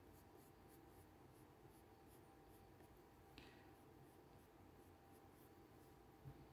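Faint scratching of a colored pencil on paper, a run of quick short strokes shading a dog's fur.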